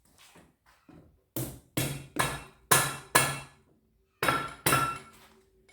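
Hammer blows on the cylinder barrels of a 1973 Honda CB350 Four engine to break them loose: a quick run of five sharp knocks, then two more, some with a brief metallic ring. The barrels are stuck to the crankcase, which the owner puts down to paint.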